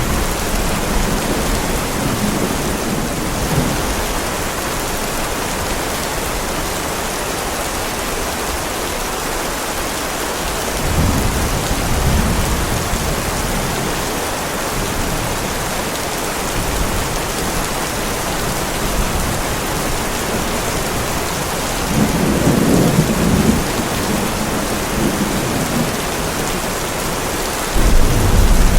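Heavy rain falling steadily, with rolls of thunder rumbling low about 11 seconds in, again about 22 seconds in, and once more near the end.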